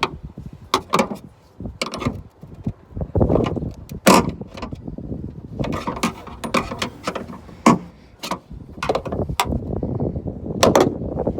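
Sharp clicks and knocks of a bonnet gas strut being prised off its ball-stud mounts and a new strut snapped on. The loudest knock comes about four seconds in.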